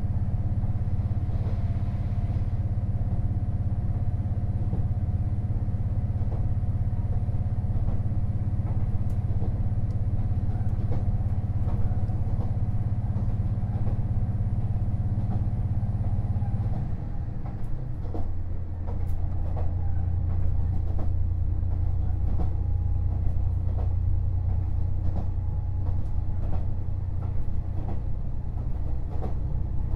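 JR KiHa 48 500-series diesel railcar running, heard from inside the car: a steady diesel engine drone over running noise. About halfway through, the engine note drops and changes with a brief dip in level, then settles into a lower steady drone with scattered light clicks.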